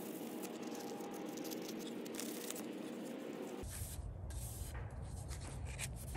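Sandpaper rubbed back and forth over a stained wooden gunstock in repeated scratchy strokes, a light sanding to take the tackiness off the stain before a clear coat.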